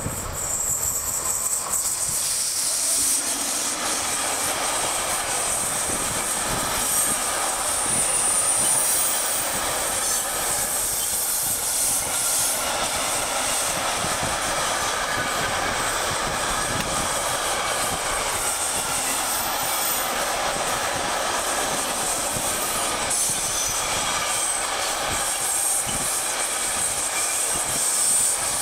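Container freight train hauled by a ČD Cargo class 363 electric locomotive rolling past at close range. The steady rumble of the wagons comes in suddenly as the locomotive arrives and carries on unbroken, with a high, thin wheel squeal over it.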